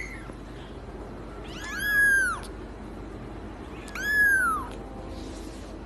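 Young kitten mewing: high-pitched meows that each rise and then fall in pitch, a short one right at the start, then two longer ones about two seconds apart.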